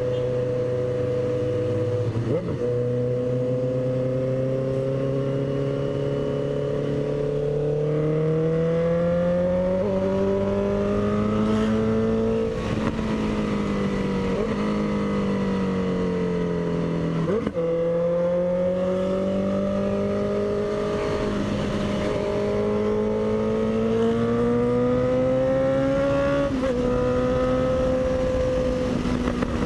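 Honda CB650F's inline-four engine running under way, loud, its note climbing slowly, falling off near the middle, then climbing again, with a brief break at each gear change.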